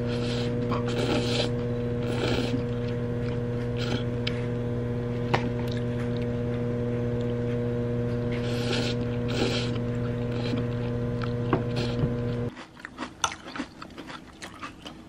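Microwave oven running with a steady hum, while noodles are slurped and chewed in short bursts over it. The hum cuts off about twelve seconds in, leaving a few light clicks.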